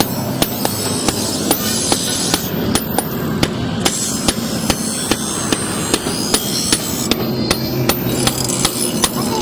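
Hand hammer striking metal on an anvil in an even rhythm, about two blows a second, over a steady background noise.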